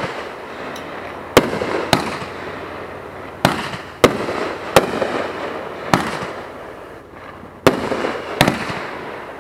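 Aerial fireworks bursting overhead: about eight sharp bangs at uneven gaps of roughly half a second to a second and a half, each trailing off before the next.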